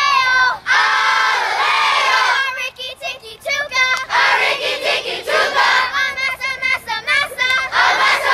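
A large group of children singing and chanting a cheer in unison, long held notes at first, then quick short shouted syllables.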